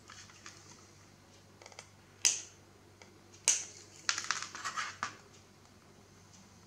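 Small flush-cut snippers clipping through-hole component leads close to the circuit board: two sharp snips about a second apart, then a quick run of small crackling clicks.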